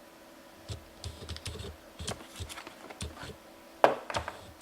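Irregular clicks and knocks of hand tools and bits being handled in a plastic tool kit case, the loudest knock about four seconds in.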